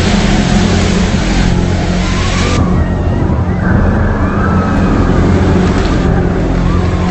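A loud, steady low drone of several layered tones, with faint wavering whistle-like tones above it. A hiss over the top falls away about two and a half seconds in and returns near the end.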